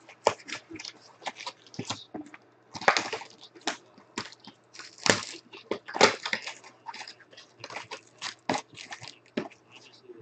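Cellophane wrap on a cardboard trading-card hobby box crinkling and tearing as it is pulled off and the box opened: irregular crackly rustles, loudest about three seconds in and around five to six seconds in.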